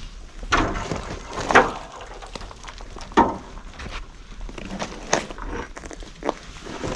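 Footsteps crunching over loose rubble: a handful of uneven steps, with the crunches about a second or two apart.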